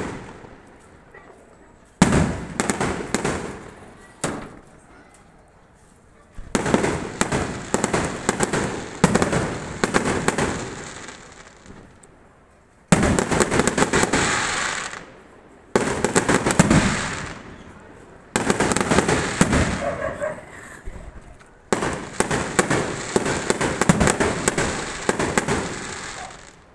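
Fireworks and firecrackers going off in rapid crackling barrages. About seven bursts each start suddenly and die away over a second or two, with short quieter gaps between them.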